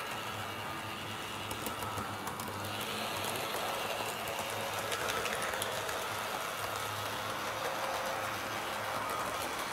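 HO-scale Roco model of an NS 1100 electric locomotive running along the track with its coaches: a steady small electric-motor hum and gear whirr, with light clicking of the wheels over rail joints.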